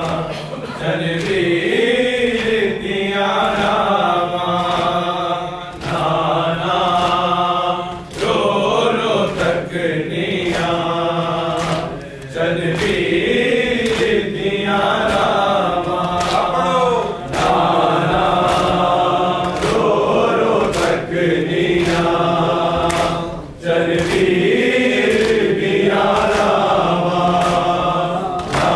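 A group of men chanting a noha, a Shia lament, together in long sung phrases, with sharp rhythmic chest-beating (matam) strikes keeping time at about three every two seconds.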